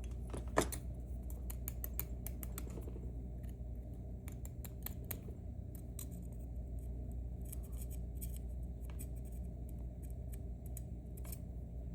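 Scattered small metallic clicks and ticks of tiny lock pins and tools being handled while a dimple lock is taken apart, with one sharper click about half a second in.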